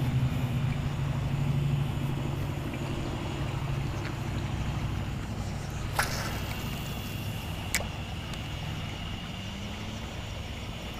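A motor engine drones steadily, loudest at the start and then fading. Two sharp clicks come about six and eight seconds in.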